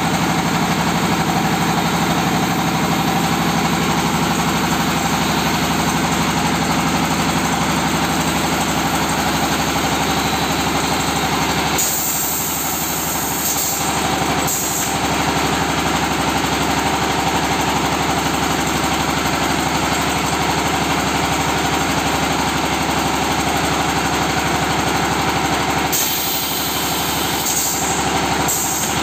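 Red-brick press machine running steadily, with a bright hissing burst about twelve seconds in and again near the end.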